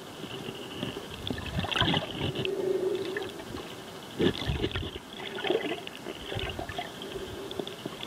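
Water gurgling and bubbling as heard through a submerged camera, with irregular crackles and louder splashy surges about two and four seconds in.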